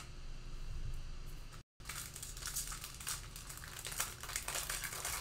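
Plastic wrapper of a Panini Mosaic football card pack being torn open and crinkled in the hands, with dense crackling from about two seconds in after a brief dropout in the audio.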